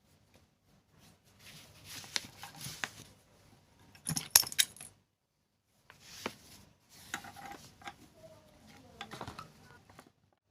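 Small metal parts and hand tools clinking and scraping against a sewing machine's mechanism during repair work. Irregular clicks, loudest as a quick cluster about four seconds in.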